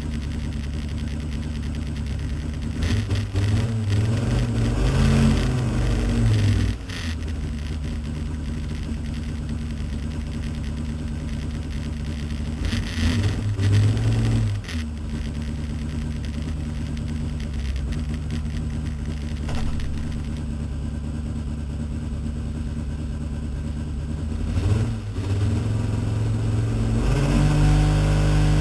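Pro Stock Insight drag car's race engine idling, heard from inside the cockpit, revved up and back down three times, then held at higher revs near the end.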